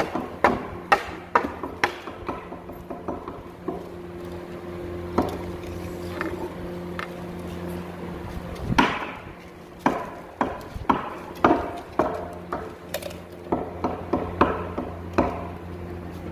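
Irregular sharp wooden knocks and taps as a raised-panel wooden cabinet door is handled on the floor, in quick clusters of a few a second near the start and again through the second half, over a steady low hum.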